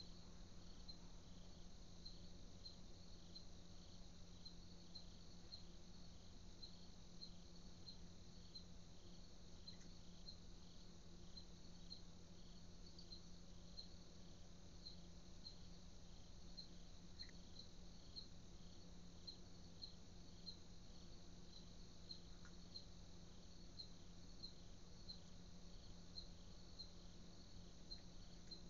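Faint cricket chirping at an even pace, about three short, high chirps every two seconds, over a low steady hum.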